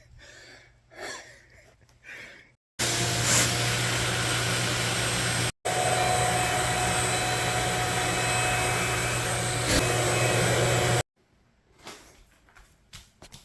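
Shop vac running steadily as it picks up floodwater from carpet. It starts about three seconds in, cuts out for an instant midway and comes back with a slightly different tone, then stops abruptly near the end.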